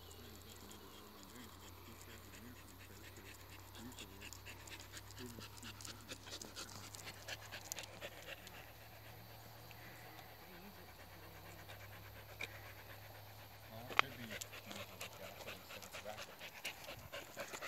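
Dog panting steadily while walking, with footsteps on asphalt. A single sharp click about 14 seconds in.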